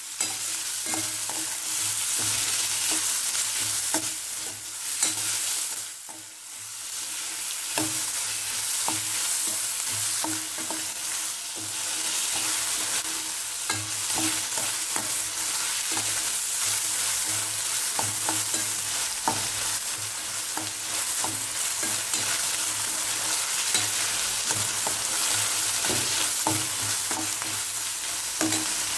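Chopped onions and capsicum sizzling in hot oil in a stainless steel kadai as they are sautéed, stirred and scraped with a steel slotted spoon that clinks often against the pan. The frying hiss drops briefly about six seconds in.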